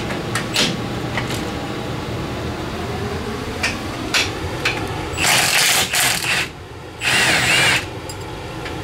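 A few light metal clinks of tools and hardware being handled, then a handheld power tool run in two bursts of about a second each, the first about five seconds in and the second about seven seconds in.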